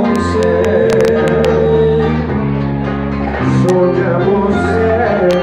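Band music with guitar and held bass notes, a few light percussion hits on top, playing the instrumental ending of a song after the last sung line.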